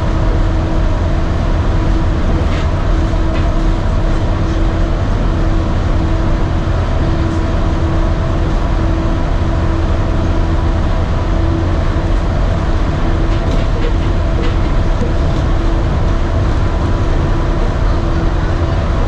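Walt Disney World monorail running along its beamway, heard from inside the cabin: a steady low rumble with a constant hum of a few held tones and occasional light ticks.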